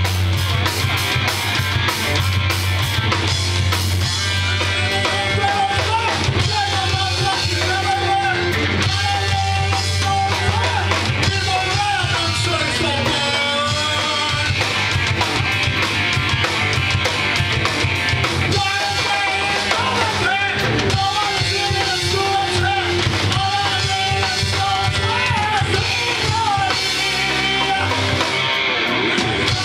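A live rock band playing loud, with electric guitars, a drum kit and singing.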